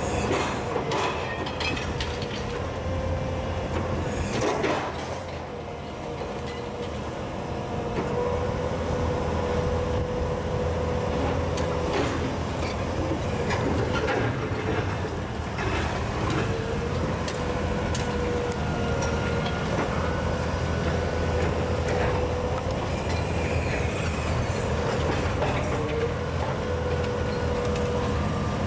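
Komatsu PC210LC hydraulic excavator with a demolition processor attachment: its diesel engine runs steadily under a whine that comes and goes. Scattered knocks and cracks sound as the jaws crush concrete and steel.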